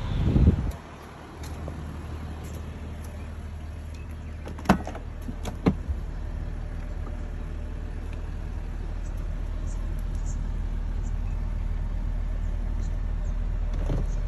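Car doors on a 2007 Mercedes-Benz S320: a heavy door thump in the first second, then two sharp latch clicks about a second apart as a rear door is opened, over a steady low rumble.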